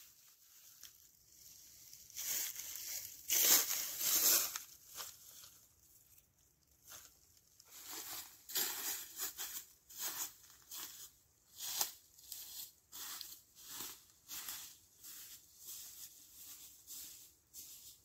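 Footsteps rustling through dry fallen leaves at a steady walking pace, about two steps a second, after a longer rustle of leaves a few seconds in.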